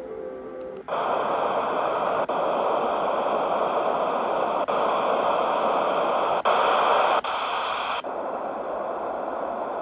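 Hushing portable mini white noise machine playing through its small speaker. Soft music tones stop about a second in and give way to a loud steady hiss. The hiss changes character at several brief gaps as different noise settings are stepped through, and settles on a quieter, duller noise near the end.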